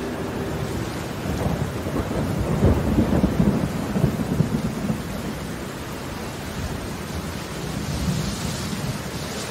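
Thunder rolling with crackles for about three seconds, starting about a second and a half in, over steady rainfall.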